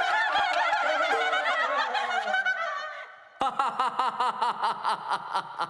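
Several voices chanting a rhyme over music, fading out about three seconds in. Then a man's hearty laugh starts suddenly: a long run of even 'ha' pulses, about four a second, sliding down in pitch.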